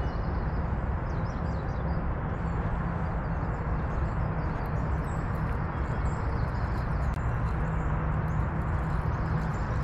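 A steady low rumble with faint bird chirps high above it.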